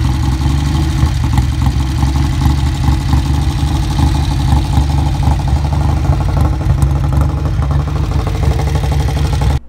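Classic motorcycle engine idling steadily with a low, even beat. It cuts off abruptly near the end.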